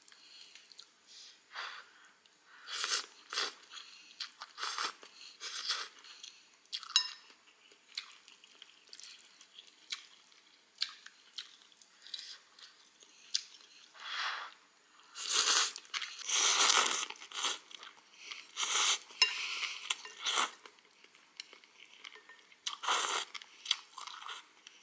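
Close-miked eating of a bowl of glass-noodle chicken soup: wet slurps of noodles and broth and chewing, in an irregular string of short bursts with a run of longer slurps about two-thirds of the way through.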